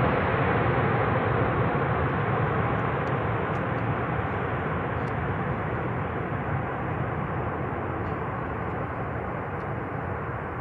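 Boeing 737 jet engine noise, a steady rushing roar that slowly fades as the aircraft moves away.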